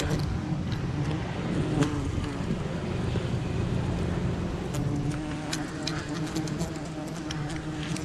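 Wild honeybees humming steadily around their freshly cut comb. Short snaps and rustles of branches and leaves join in during the second half.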